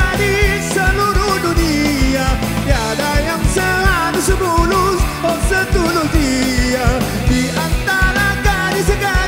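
Live band playing an instrumental break in a Malay pop song, with a steady beat and a lead melody line.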